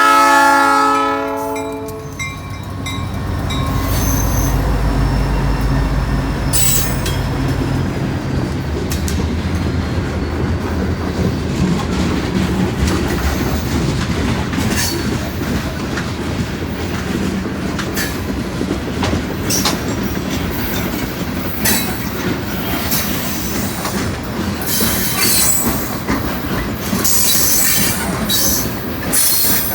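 A diesel locomotive horn sounds and cuts off about two seconds in. Then the locomotives of a loaded rock train rumble past close by, followed by the cars rolling over the rails with clacks and squeals from the wheels.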